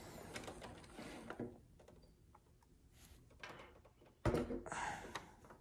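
Faint rustle of hands handling a large plastic Lego brick model, then, a little past four seconds in, a sudden louder knock followed by about a second of plastic handling noise.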